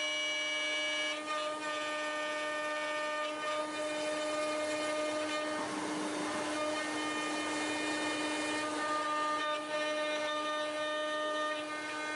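CNC router spindle running and milling, a steady high whine with several pitch lines that shift slightly as the cutter moves through the cut.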